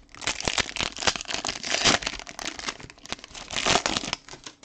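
Foil wrapper of a hockey trading-card pack crinkling and tearing as it is ripped open by hand. The crackling is loudest about two seconds in and again shortly before it dies away near the end.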